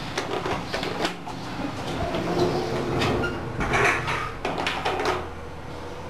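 1990 Mitsubishi elevator answering a ground-floor call: clicks and knocks as the doors slide shut, then from about five seconds in a quieter, steadier hum as the car sets off.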